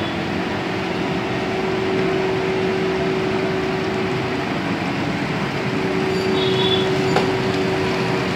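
Four-colour flexographic printing press running, feeding printed plastic film for woven sack bags over its rollers: a steady mechanical rumble with a steady hum through it.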